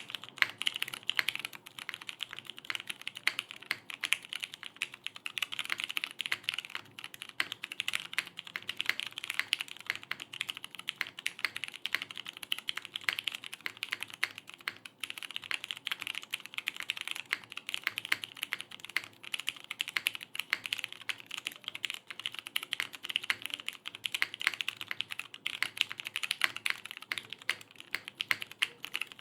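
Fast, continuous typing on a mechanical keyboard: lubed vintage Cherry MX Brown tactile switches on a polycarbonate plate in an o-ring-mounted Dalco 959 Mini GT with no foam, under GMK keycaps. A dense stream of key clicks and bottom-outs.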